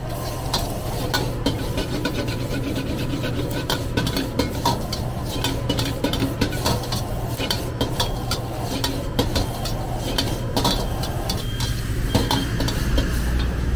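Long metal ladle scraping and knocking against an iron wok in many quick, irregular strokes as noodles and vegetables are stir-fried and tossed.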